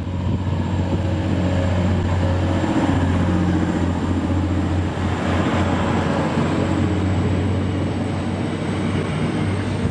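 TransPennine Express Class 185 Desiro diesel multiple unit running past close by, with a steady diesel engine drone and wheel-on-rail rumble. The rumble is loudest about three seconds in and eases as the rear of the train goes by.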